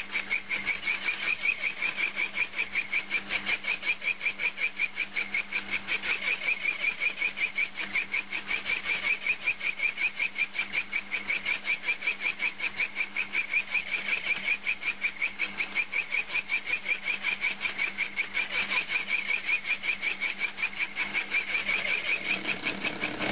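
Bench milling machine running a small disc cutter (slitting saw) through a cast-iron mandrel, giving a rhythmic high chirping about five times a second over the steady hum of the mill's motor.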